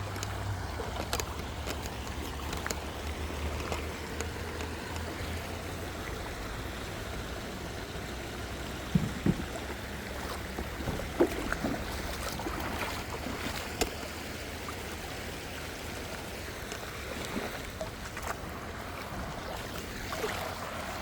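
Shallow creek water running and trickling around a kayak, with a few sharp knocks near the middle.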